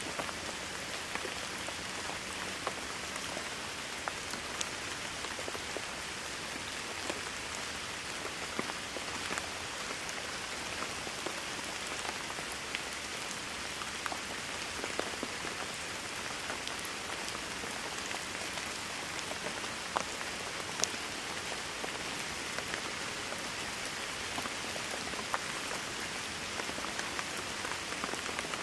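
Steady rain falling, a constant hiss with scattered sharp individual drop ticks.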